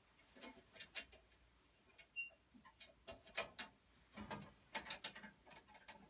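Irregular light clicks, taps and scrapes from small metal parts and tools being handled in a gas furnace's burner compartment as the flame sensor is taken out. The clicks come closer together in the second half.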